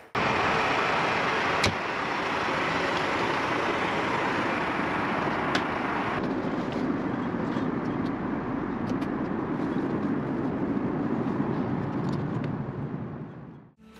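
Steady rushing cabin noise of an Airbus A380 in cruise flight. The hiss loses some of its upper edge about halfway through, and it fades out near the end.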